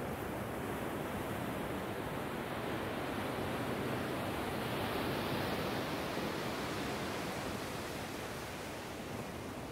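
Small ocean waves breaking and washing up a sandy beach: a steady surf hiss that swells to a peak about halfway through as a wave breaks, then eases back.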